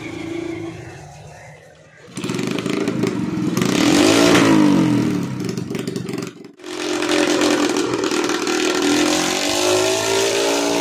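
Small motorcycle engine on a homemade flywheel-and-alternator generator rig, running loudly from about two seconds in. It is revved up and back down once, then after a brief break runs steadily with its pitch edging up near the end.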